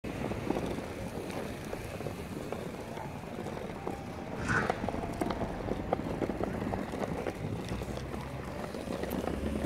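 Small plastic wheels of a toddler's ride-on scooter rolling over rough asphalt: a steady gritty rolling noise with scattered small ticks.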